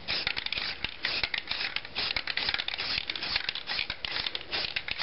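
Aerosol can of flat gray spray paint in use: a rapid, irregular run of short hissing spurts and clicks as it lightly mists the rocks.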